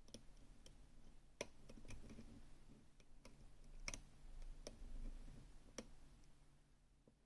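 Faint, irregular clicks of a lock pick working the spring-loaded sliders inside a Gerda Exxo lock, a few sharp ticks spaced unevenly over several seconds.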